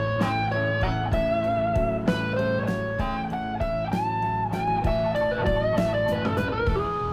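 Background music: an electric guitar plays a melody over a steady beat.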